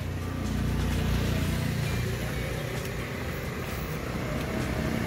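Toyota Land Cruiser HDJ80's turbo-diesel straight-six idling, heard from inside the cabin as a steady low drone.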